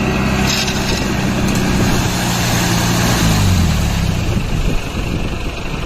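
Truck engine running steadily, its pitch dropping about three seconds in as it slows.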